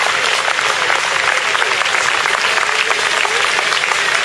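A large crowd applauding steadily, a dense patter of many hands clapping, with some voices calling out among it.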